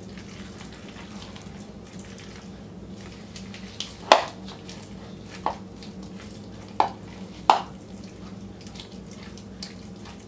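A utensil stirring and pressing thick, creamy chicken pot pie filling with mixed vegetables in a bowl: soft wet mixing sounds, and four sharp knocks of the utensil against the bowl between about four and eight seconds in, the first the loudest. A steady low hum runs underneath.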